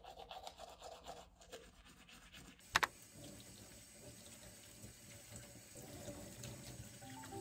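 Faint running water from a kitchen tap into a stainless-steel sink as food is rinsed in a plastic colander, starting after a sharp click about three seconds in.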